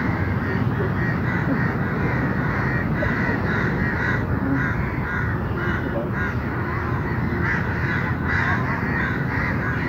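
Crows cawing over and over, harsh short calls coming in clusters of several a second, over steady low background noise.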